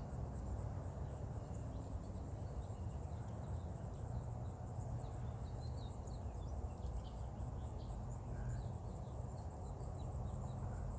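Insects chirping steadily in a fast, even, high-pitched pulsing trill, over a low steady rumble.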